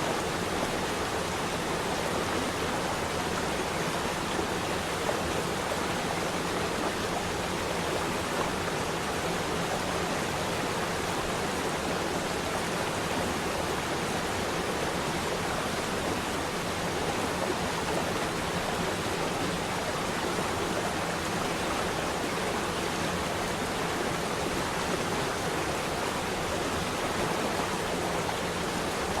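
Flowing water rushing steadily, a continuous even wash of sound with no changes.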